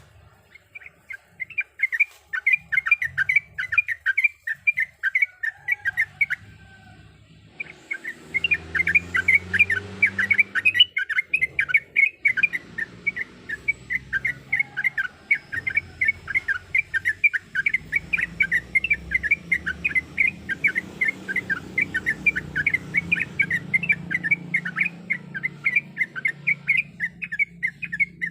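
Sooty-headed bulbul (trucuk) singing a long, fast run of short chattering notes, about six or seven a second, breaking off for about a second some seven seconds in before carrying on.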